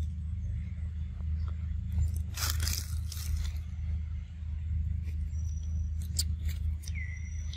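Outdoor ambience: a steady low rumble with scattered dry crackling rustles, clustered about two to three seconds in and again around six seconds. A thin high whistle-like tone is held through the last couple of seconds.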